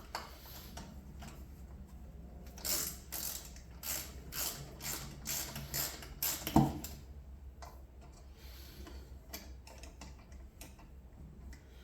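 A hand ratchet clicking in short spells, with scattered metal clicks and knocks as a brake rotor is bolted onto a motorcycle's front wheel. One sharper knock comes about six and a half seconds in.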